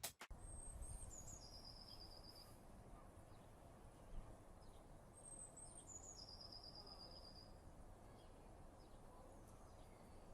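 Quiet outdoor background with a small bird calling twice, each call a thin high note that steps down into a short trill.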